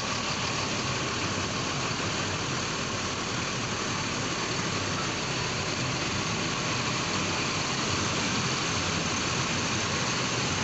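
Diesel bus engines idling, a steady drone that holds level without revving or changing.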